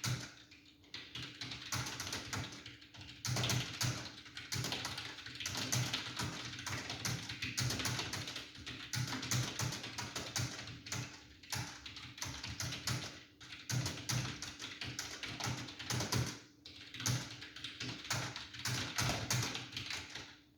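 Fast touch-typing on a computer keyboard during a one-minute typing speed test: a dense, continuous stream of keystroke clicks with a few brief pauses.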